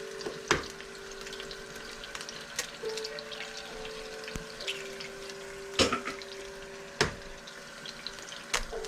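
Food sizzling and crackling in a frying pan, with a few sharp knocks, the loudest near the middle and toward the end, over a steady hum.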